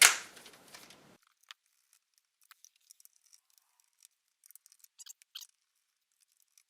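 A sharp clack with a brief ring at the start, then a scatter of faint small clicks and ticks of plastic parts and hand tools as the Roomba's wheel module is worked loose.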